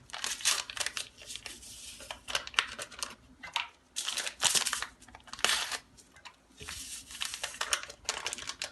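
Paper sachets of vanilla crinkling and tearing as they are opened and emptied over a bowl: irregular rustles and short crackles.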